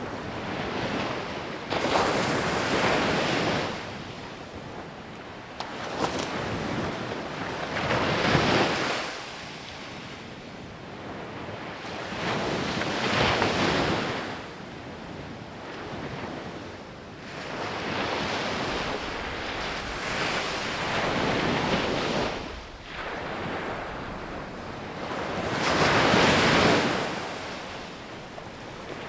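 Sea waves breaking on a beach and washing up the shore: five surges a few seconds apart, each swelling up and then falling away.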